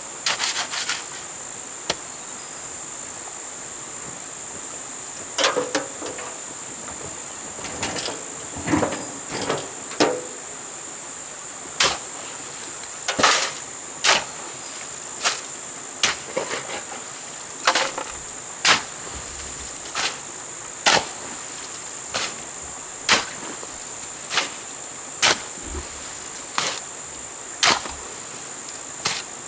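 A steady high-pitched insect drone, with sharp knocks of a hand tool striking. The knocks are scattered at first, then settle from about twelve seconds in to one every second or so, like work blows.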